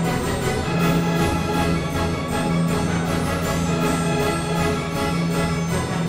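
Orchestral background music with string and brass tones over a steady, quick rhythmic pulse.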